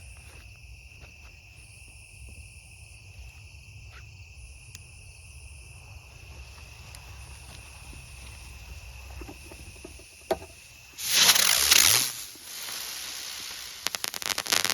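Crickets chirring steadily. Then, about eleven seconds in, a Mad Hornet aerial spinner firework goes off with a sudden loud hissing whoosh as it lifts, its hiss carrying on more softly as it climbs. A rapid crackling follows near the end.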